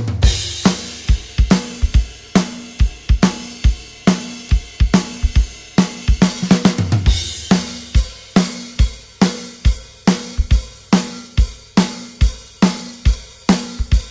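Background music: a drum-kit track with a steady beat of kick and snare hits and cymbals, with a quick run of drum hits about six seconds in.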